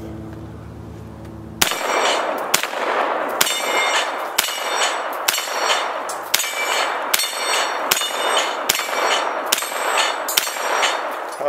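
Double Star 9mm AR-15 pistol fired about a dozen times at an even pace, a little under a shot a second, starting about a second and a half in. Each shot is followed by steel targets clanging and ringing from the hits.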